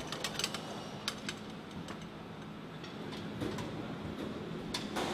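Light clicks and metallic taps of hand tools working on an F-15's landing gear over steady hangar room noise. The clicks cluster in the first couple of seconds and come again near the end.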